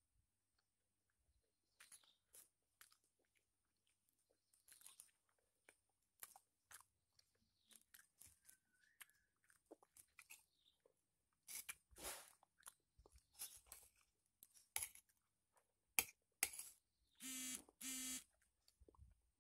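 Eating sounds: a metal spoon scraping and clinking against a glass plate as it cuts and scoops a rolled omelette, with chewing. Scattered faint clicks at first, growing louder and more frequent in the second half, with two longer scrapes near the end.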